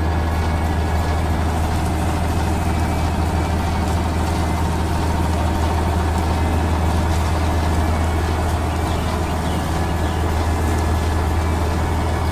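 Heavy vehicle engine running steadily, a deep, even drone.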